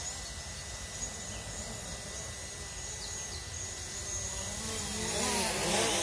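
DJI Mavic Pro quadcopter's propellers buzzing in flight, the pitch wavering as it manoeuvres. It grows louder from about two-thirds of the way in as the drone comes closer.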